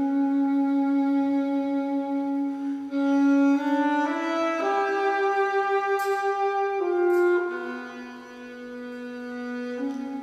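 Instrumental passage of a slow song with no singing: one melody line of long held notes with a reedy, wind-instrument sound, rising step by step to a high note held with vibrato in the middle, then falling back to the opening pitch.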